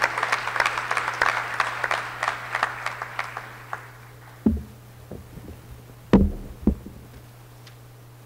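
Audience applause dying away over the first three seconds or so, followed by a few dull low thumps, the loudest about six seconds in.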